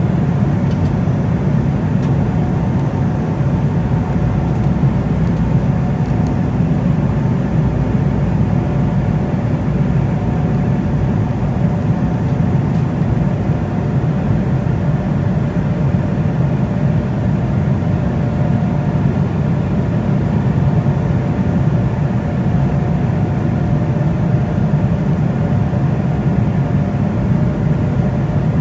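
Steady engine and airflow noise inside the cabin of an Embraer E190 jet airliner, a constant deep rumble with faint steady whining tones above it.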